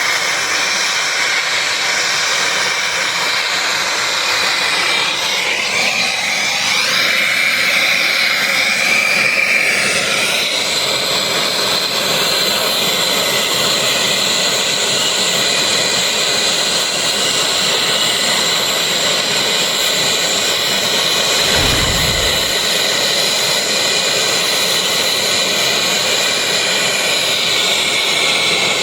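Gas brazing torch flame hissing steadily, its tone shifting for a few seconds about six seconds in, with a short low bump a little past twenty seconds.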